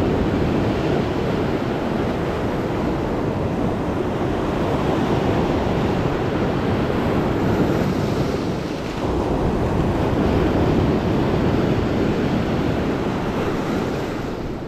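Waves breaking and washing over a rocky shoreline in a steady, continuous surf, easing briefly about nine seconds in.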